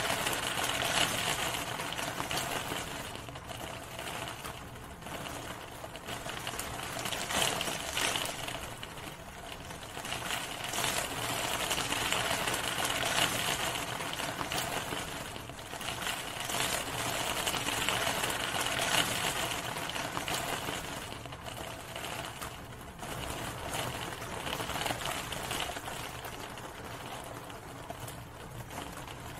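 Steady rain, a dense patter of drops, swelling and easing every few seconds.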